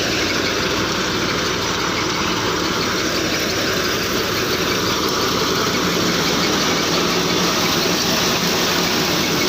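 Tractor-driven wheat thresher running steadily: the tractor engine's hum under the loud, even whirr and rush of the threshing drum and fan, finishing the last of the grain.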